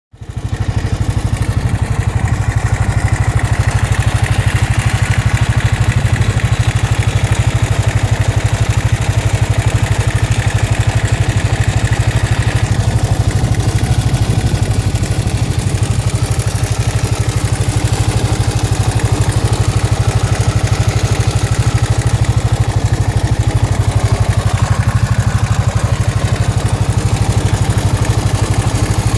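Suzuki DR 800 S big single-cylinder motorcycle engine idling steadily, a fast even thumping pulse.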